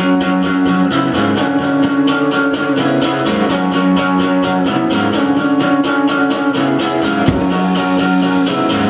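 Amplified electric guitar strumming chords in a steady, even rhythm, the chords sustaining between strokes.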